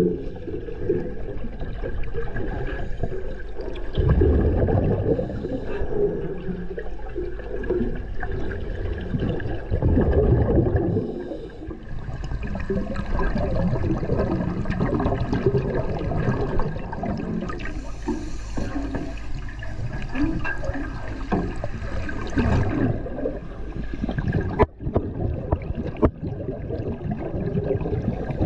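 Muffled sloshing and gurgling of seawater around a camera held just below the surface, swelling and fading every few seconds, with two sharp clicks near the end.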